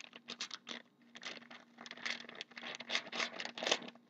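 Hockey trading cards and pack wrappers handled by hand: a quick run of papery rustles, flicks and scrapes, several a second, loudest near the end.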